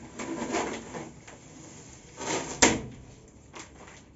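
Rustling and small knocks of hands at work, with one sharp knock about two and a half seconds in.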